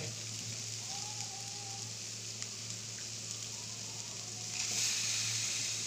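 Goan chorizo sausages and sliced onions frying in oil in a steel kadai, a steady sizzle that grows louder and hissier about four and a half seconds in.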